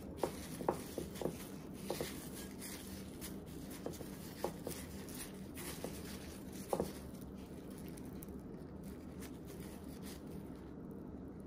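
Dry panko breadcrumbs crunching and rustling under plastic-gloved fingers as they are pressed onto a shrimp in a glass dish, with a few light ticks in the first several seconds. A steady low hum runs underneath.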